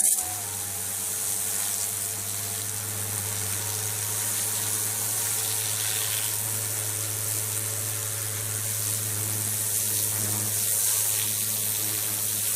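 Greenworks 3000 PSI pressure washer spraying through its turbo nozzle: a steady hissing jet over a constant low hum from the pump, switching on abruptly as the trigger is pulled and then running unbroken.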